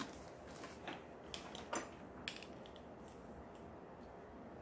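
A few light clicks and taps of small objects being handled, the last about two seconds in, then quiet room tone.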